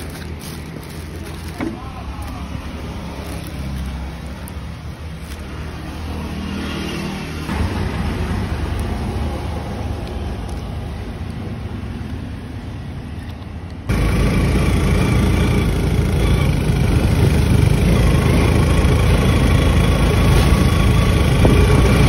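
Steady low rumble, then about fourteen seconds in an abrupt step up to the louder engine and road noise of a cart travelling along a road.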